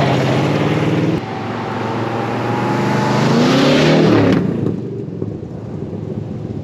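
1968 Ford F-100's 351 Windsor V8 driving past and accelerating, the engine note rising about three to four seconds in, then fading as the truck pulls away. The engine is running better on its new HEI distributor.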